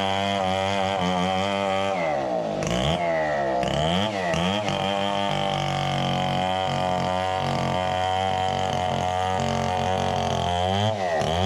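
Chainsaw engine running steadily while cutting coconut lumber, its pitch sagging and recovering under load about two seconds in and again near the end.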